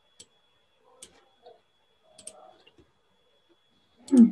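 Computer mouse clicking about four times, some as quick double clicks, over a faint steady high-pitched tone. A short, loud voiced sound falling in pitch comes near the end.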